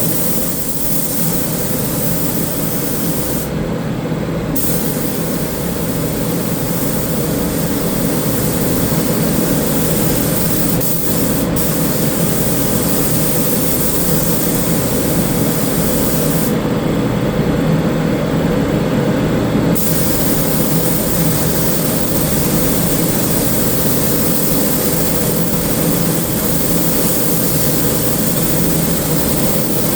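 Paint spray gun hissing steadily as sealer primer is sprayed, the hiss stopping briefly twice as the trigger is let go, over a steady low machine drone.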